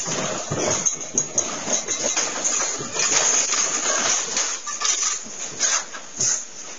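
A house rattling and creaking as an earthquake shakes it: a dense, continuous clatter of small knocks, creaks and clinking that starts suddenly.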